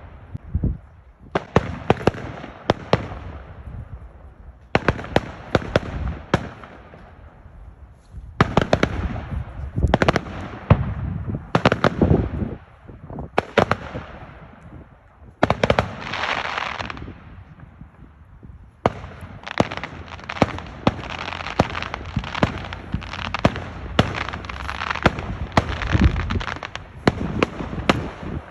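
Fireworks display: a continuous run of sharp bangs, often several in quick succession, with hissing, crackling showers fading away between them and a brief lull about two-thirds of the way through.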